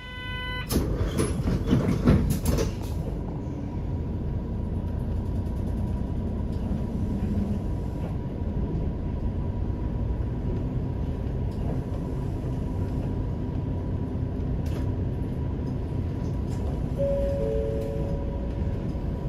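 Steady low rumble of a moving vehicle. It opens with a brief beep and a louder rush for about two seconds, and two short tones sound near the end.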